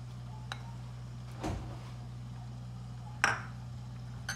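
A spoon clinking against a glass mixing bowl a few times while adding crushed red chili flakes to sliced vegetables, the sharpest, ringing clink about three seconds in. A steady low hum runs underneath.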